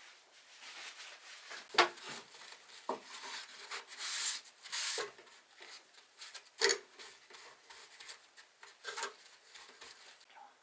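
Rubbing and scraping on wood, uneven strokes with a few sharp knocks, the loudest about two seconds in and again past the middle.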